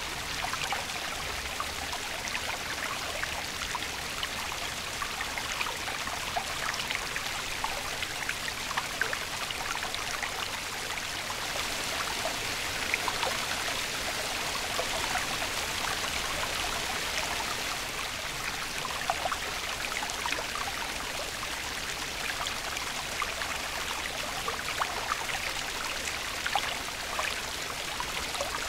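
Running water of a stream, trickling and splashing steadily with many small drips.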